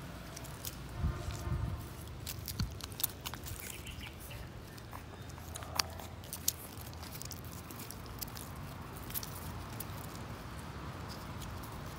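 Puppies suckling at a mother dog's teats: many small, irregular wet clicks and smacks, with two sharper ones a little after the middle, over a steady low rumble.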